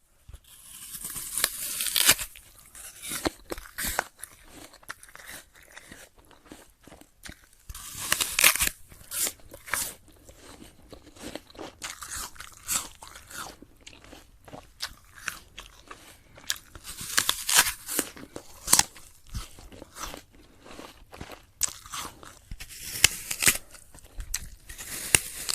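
A crunchy apple being bitten and chewed: four loud crunching bites, each followed by a run of sharp, crisp chewing crunches.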